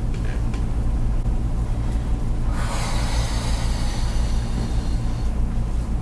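A long hissing scrape of a muscle-scraping tool drawn across the skin, starting about two and a half seconds in and lasting nearly three seconds, over a steady low hum.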